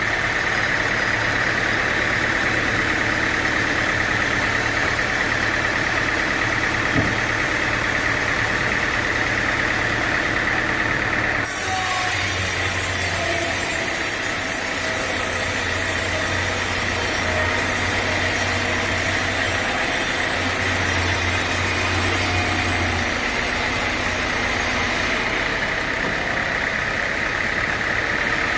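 A sawmill's engine running steadily. A high hiss comes in suddenly about a third of the way through and stops a few seconds before the end.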